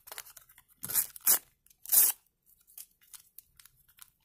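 A Topps sticker packet being torn open by hand: three short rips between about one and two seconds in, followed by faint crinkling and handling.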